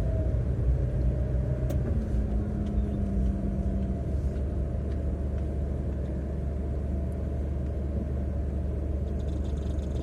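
Car cabin noise while driving: a steady low rumble from the engine and road. A faint, rapid ticking comes in near the end.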